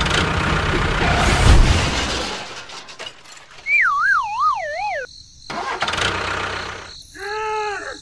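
Edited-in cartoon sound effects: a loud rumbling noise for the first two seconds, then a wobbling whistle-like tone that falls in pitch, the 'dizzy' effect, and near the end a short pitched tone that rises and falls.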